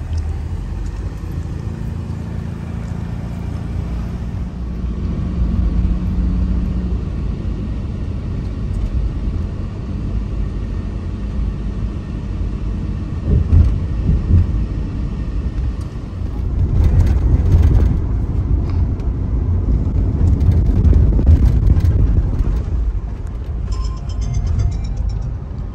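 Road and engine noise of a moving passenger van heard from inside the cabin: a steady low rumble that grows louder and rougher for a moment about halfway through and again for several seconds after that.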